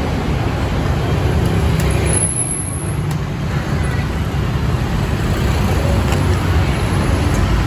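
Steady street traffic noise: a low rumble of passing vehicle engines.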